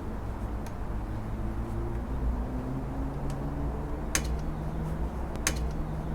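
Hands working a serpentine belt onto the engine pulleys: two sharp clicks, about four and five and a half seconds in, over a steady low rumble.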